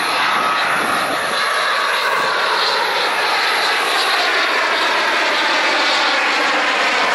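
Jet noise from a single-engine F-16 fighter flying a display pass overhead, loud and steady, with a slowly sweeping hollow tone as the jet moves across the sky.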